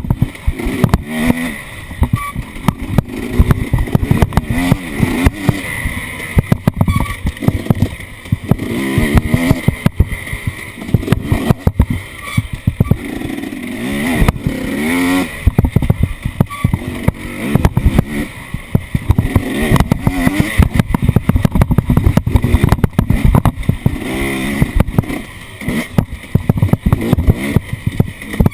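Off-road vehicle engine revving up and down repeatedly under load, with frequent knocks and rattles.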